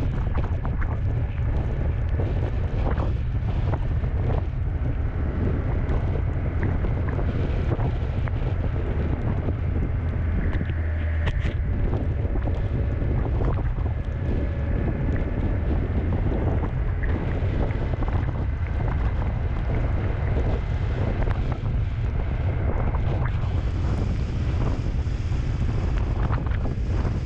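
Steady wind rumble buffeting the microphone of a camera mounted on a moving motorcycle, with the rush of riding along a wet road.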